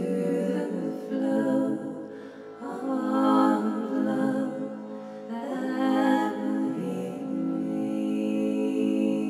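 Sound-healing music: a singing bowl's sustained drone under a wordless voice that swells and fades every few seconds.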